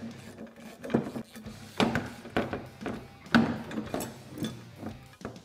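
Hand tools clinking and knocking against a steel bracket as Allen-head screws are tightened into nylock nuts with a hex driver and a wrench: a handful of sharp metallic clicks at irregular intervals, the loudest a little under two seconds in and again past three seconds.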